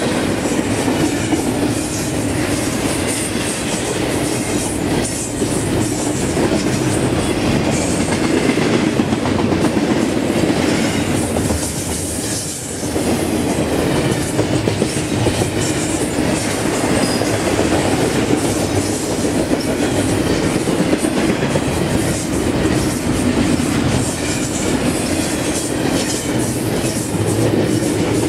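Double-stack container cars of a freight train rolling past at close range: a loud, steady rumble and clatter of steel wheels on the rails, with a brief lull about twelve seconds in.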